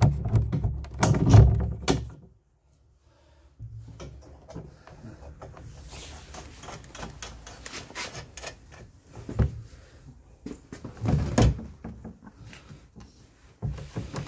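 Scattered knocks and clicks of tools and parts being handled while a delivery box is bolted onto a motorcycle. It is busiest at the start, cuts to dead silence for about a second, and has a couple of louder knocks past the middle.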